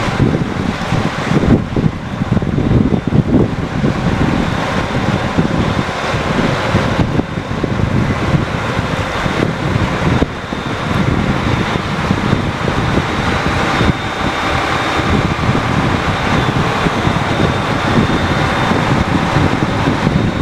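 Tracked tractor's engine running steadily while the grain cart's unloading auger runs, with wind buffeting the microphone. A faint steady whine joins about halfway through.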